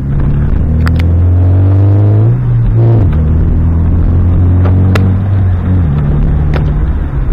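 Volkswagen car engine, fitted with an aftermarket exhaust with the resonator deleted, revving under hard driving. The pitch climbs for about two seconds, dips just before three seconds, holds high and steady, then falls away near six seconds, with a few sharp clicks along the way.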